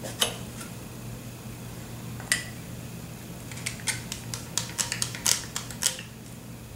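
Sharp clicks and light taps of a saxophone mouthpiece and neck being handled while the mouthpiece is fitted onto the bass saxophone's neck cork: single clicks near the start and about two seconds in, then a quick run of small clicks over the last few seconds.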